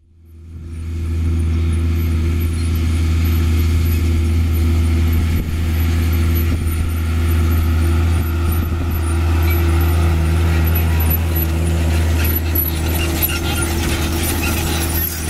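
New Holland T6.130 tractor's four-cylinder diesel engine running steadily under load while pulling a seed drill across the field, with a strong low hum. It fades in over the first second.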